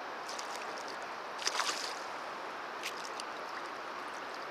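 A hooked mullet splashing and swirling at the water's surface close to the bank, with one louder splash about a second and a half in and a couple of light clicks near three seconds, over a steady hiss.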